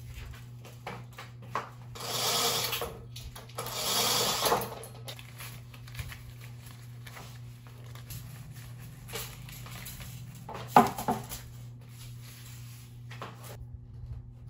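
Curtain fabric being handled and hung on a rod: two rustling swishes early on, scattered light clicks, and one sharp knock about eleven seconds in, over a steady low hum.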